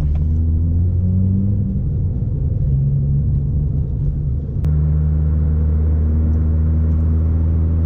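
Low, steady drone of a Chevrolet Corsa 1.4 four-cylinder engine through a sport exhaust with Luzian LA011 intermediate and LA09 rear mufflers, cruising in fifth gear. The engine note wavers slightly at first; about four and a half seconds in there is a sharp click, and after it the drone holds a steadier pitch.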